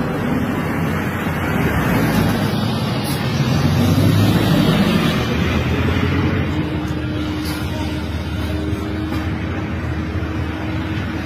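Street traffic noise dominated by a school bus driving past close by, its engine rumble swelling about four seconds in and then easing off.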